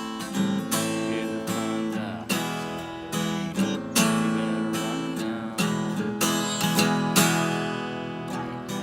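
Acoustic guitar strumming chords, an instrumental passage of a song.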